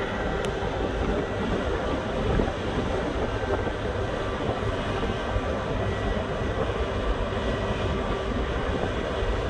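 Steady machinery drone of a cargo ship with its deck crane at work, a few faint steady tones over a rough, low rumble that doesn't change.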